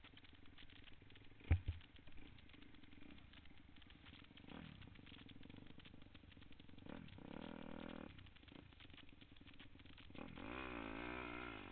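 Dirt bike engines idling, with one sharp knock about a second and a half in. The engine note gets louder twice, and near the end it wavers up and down in pitch as the second dirt bike revs close by.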